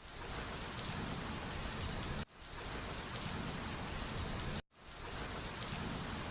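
Steady rain-like hiss that cuts off and restarts twice, about two and a half and four and a half seconds in, as a short sound clip repeated in a loop.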